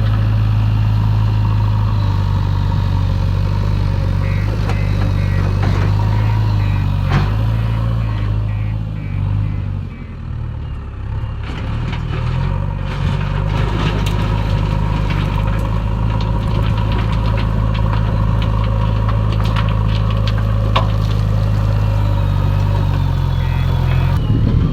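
JCB 3DX backhoe loader's diesel engine running steadily. About nine to twelve seconds in it dips and lugs under load before picking back up, with scattered clanks and knocks.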